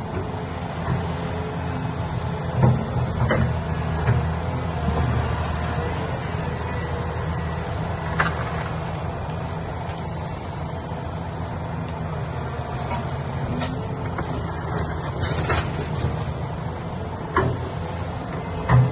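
Heavy construction machine's engine running steadily, with sharp knocks now and then, loudest a little over two seconds in and again near the end.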